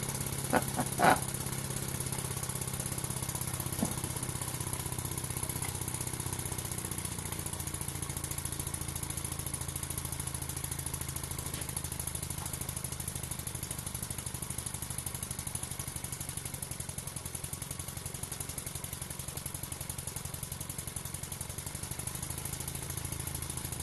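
Small RW-BL1K live-steam model engine running steadily at speed, a fast even chuffing with steam hiss, turning a small generator through its new brass drive pulley. A couple of light clicks about a second in.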